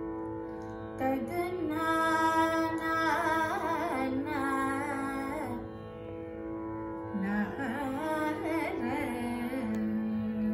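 A woman singing Carnatic vocal phrases in raga Kalyani, her notes bending and wavering with gamakas, over the steady drone of an electronic tanpura. There are two phrases: the first starts about a second in, and the second starts after a short pause near the middle.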